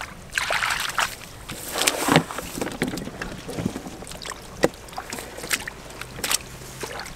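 Hands splashing and sloshing in shallow muddy paddy water, groping for catfish, in irregular surges, with many small splashes and sharp ticks scattered between them.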